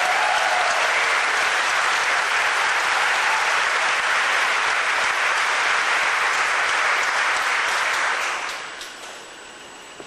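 Audience applauding steadily, dying away about eight seconds in.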